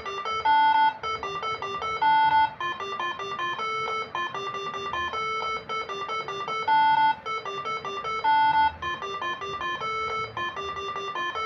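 Moreno MS7 horn melody module playing tune E in its angklung-style voice: a quick run of short stepped notes, with a longer, louder high note coming back four times.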